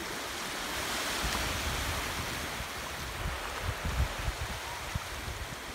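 Shallow sea waves washing up and running back over flat wet sand, a steady hiss that swells about a second in. Low rumbling bumps come through in the middle.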